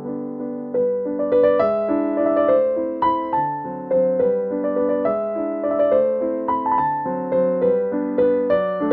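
Background piano music: a melody of struck, fading notes over steady chords. No cutting sounds stand out above the music.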